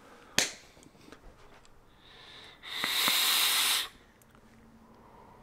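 A sharp click, then a faint hiss from about two seconds in that swells into a loud breathy hiss lasting about a second: a hit being taken on a DNA 250 Color vape mod.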